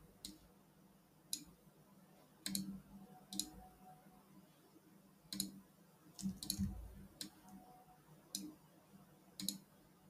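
Computer mouse clicks, faint, sparse and irregular: about ten single clicks, a few of them close together.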